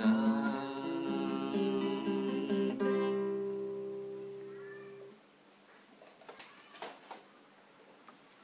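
Classical guitar's closing chord ringing and fading away, then stopping abruptly about five seconds in. After it, a few faint clicks and knocks.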